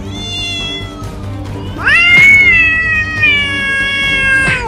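An animal's pitched cry: a short one at the start, then a long drawn-out one that rises sharply and falls slowly before stopping near the end, over background music.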